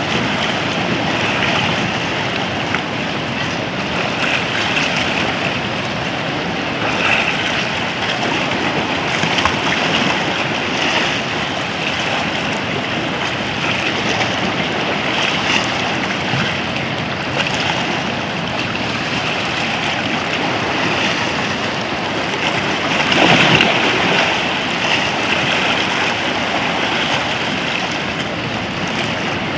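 Sea waves washing and splashing around rocks in the shallows, with surf breaking further out, a steady rushing wash that swells in a louder surge about three-quarters of the way through.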